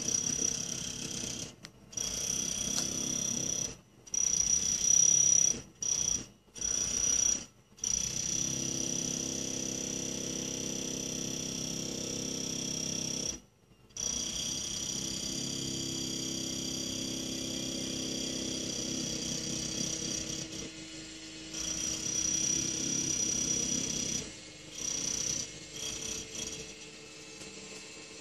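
Heavy jackhammer breaking up a concrete footpath, running in bursts that cut out for short pauses and restart, with a steady high-pitched whine over the rattle. It runs long and unbroken for several seconds in the middle, then goes quieter and stop-start near the end.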